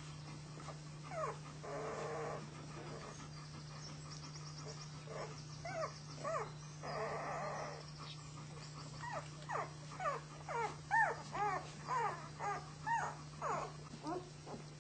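Young flat-coated retriever puppies squeaking and whimpering, scattered at first, then a run of short high squeaks about two a second in the second half. A steady low hum runs underneath.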